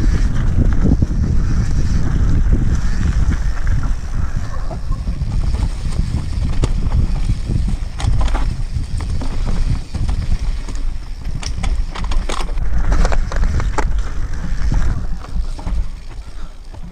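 Wind buffeting the mountain bike's camera microphone over the rumble and rattle of the bike riding down a rough dirt trail. Past the middle comes a cluster of sharp knocks and clatters as it hits rough ground, and the noise eases near the end.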